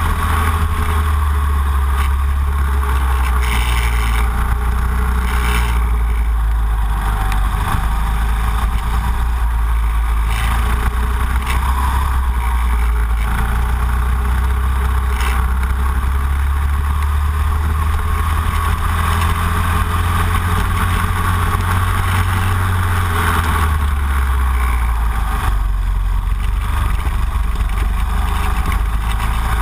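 Racing kart engine running hard as the kart laps the track, heard through a camera mounted on the kart, its note rising and falling slightly through the corners.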